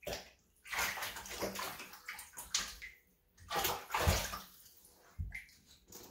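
Serval pawing and swiping at fish in a shallow bathtub of water: irregular bursts of splashing and sloshing, with heavier thumps about four and five seconds in.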